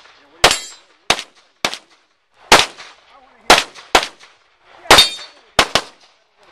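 Handgun shots fired during a practical shooting stage: about nine shots, irregularly spaced, with some in quick pairs. A short metallic ring follows a couple of them, like steel targets being hit.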